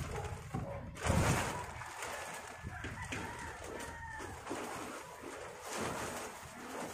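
Large plastic tarpaulin rustling and crinkling as it is lifted and shaken, with a louder swell of rustle about a second in. A faint bird call sounds around the middle.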